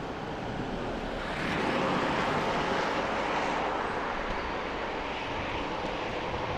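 Passenger train approaching the bridge, its running noise swelling about a second and a half in and holding steady.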